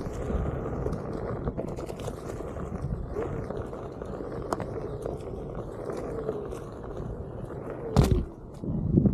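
Onewheel electric board rolling along a dirt trail: a steady rumble from the tyre with a faint motor whine that wavers and slides down in pitch. A few sharp knocks are heard, the loudest about eight seconds in.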